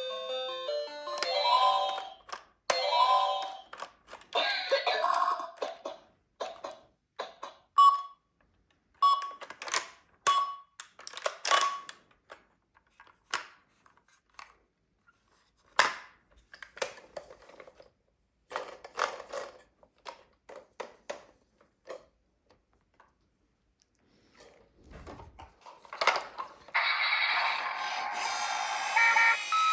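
Toy vehicles' electronic sound chips playing short beeping melody notes and chimes, broken by clicks, knocks and silent gaps. Near the end a loud electronic toy siren starts.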